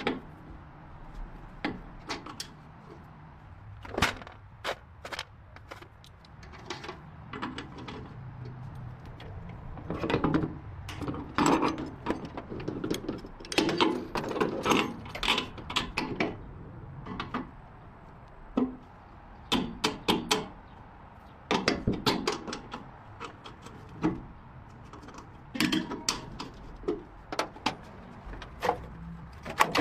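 Irregular knocks, taps and clanks of hand work on a vehicle, coming singly and in quick flurries, busiest in the middle.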